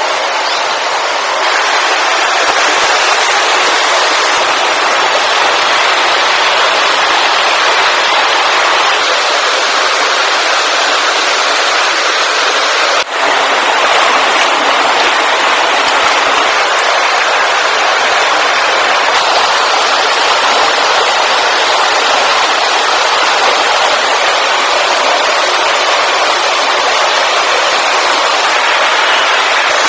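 Steady, loud rushing noise with no distinct tones, broken by a brief dip about thirteen seconds in.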